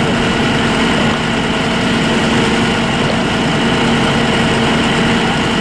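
Fire apparatus diesel engines running steadily, a constant loud drone with a steady hum.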